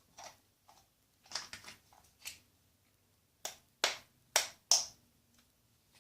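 Handling noises as spiderlings are moved between containers: a run of sharp clicks and taps, ending with four louder snaps in quick succession just past the middle.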